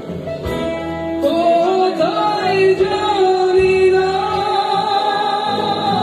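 Live band playing: a voice holds long sung notes over electric guitar, bass and drums.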